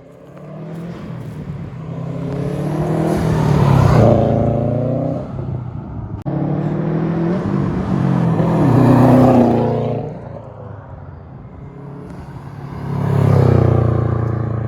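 Subaru WRX STI with a turbocharged EJ flat-four engine and aftermarket exhaust, accelerating hard past. The engine note climbs in pitch and swells twice in the first ten seconds, with an abrupt jump between the swells, then swells loudly again near the end.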